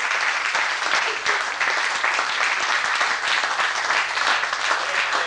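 Theatre audience applauding: a dense, steady mass of handclaps.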